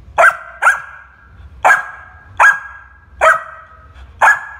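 Yellow Labrador Retriever puppy barking: six short barks at roughly one-second spacing, the first two close together.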